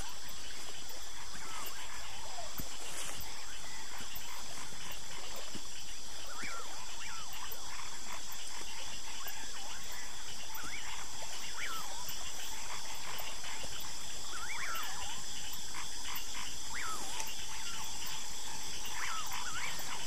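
Outdoor natural ambience: a steady, high-pitched insect chorus drones throughout, with short chirping calls scattered through it.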